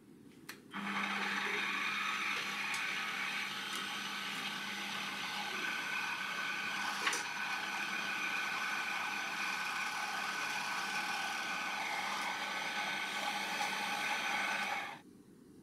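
Mini metal lathe switched on with a click and running steadily, its motor and gearing giving a low hum and a whine while the chuck spins. There is a single sharp click about halfway through, and the lathe stops abruptly near the end.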